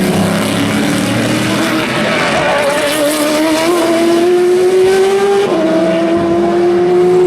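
Race car engine accelerating hard through the gears: the engine note climbs steadily, drops sharply at an upshift about five and a half seconds in, then climbs again.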